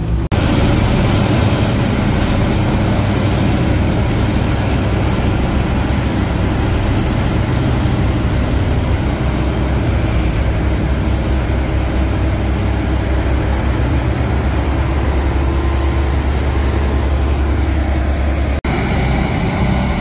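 Diesel engine of a Hamm tandem asphalt roller running steadily, a heavy low rumble. The sound breaks off sharply for a moment near the end.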